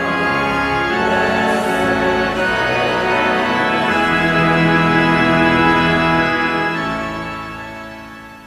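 Organ playing slow sustained chords that shift every second or two, swelling and then fading out near the end.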